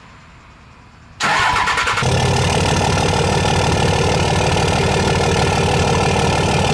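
Straight-piped Cummins turbo-diesel engine starting suddenly about a second in, with a short rough stretch as it catches, then settling into a loud, steady, evenly pulsing idle through the open exhaust.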